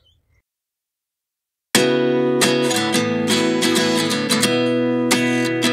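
Background music: after a brief silence, a strummed acoustic guitar starts suddenly about two seconds in and keeps playing steadily.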